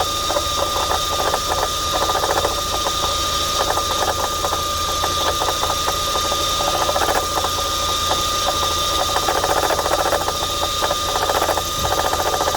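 Audi A3 1.8 engine idling with a rapid knocking ('toc, toc') and a steady high-pitched whine. The owner traced this noise to a faulty alternator.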